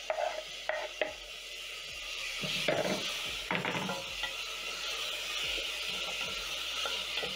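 Diced tomatoes and onions sizzling in hot oil in a metal pot while a wooden spoon stirs and scrapes them, with a few short knocks in the first second. The sizzle grows louder from about two seconds in.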